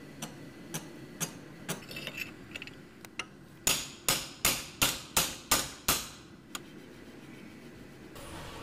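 Small hammer tapping on a knife blade clamped in a bench vise. Four light taps come about two a second, then a few faint clinks, then a run of seven harder, ringing strikes about three a second, and one last light tap.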